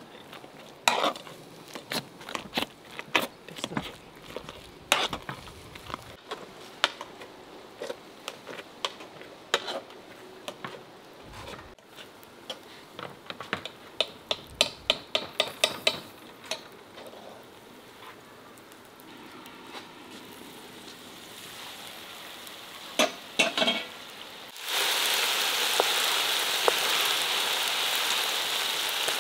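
A metal masher and spoon knock and scrape against an aluminium pot as boiled potatoes are mashed with butter: many sharp clicks for the first half. About 25 s in, beef pieces frying in oil in a large iron wok set up a loud, steady sizzle.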